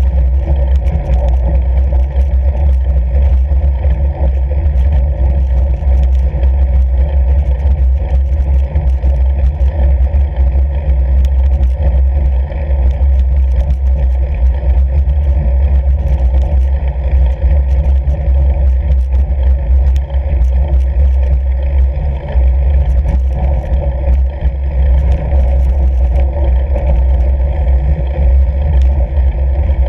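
Steady low rumble of a fat bike rolling over snow on a frozen lake, with wind noise buffeting the camera's microphone and scattered faint ticks.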